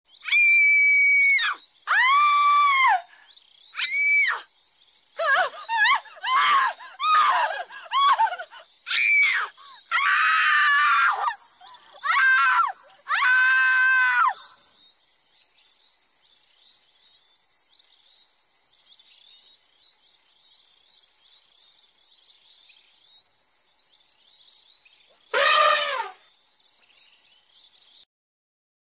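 A woman screaming again and again in long high-pitched cries for about the first fifteen seconds, with one more short cry near the end. A steady high hiss runs underneath and cuts off suddenly just before the end.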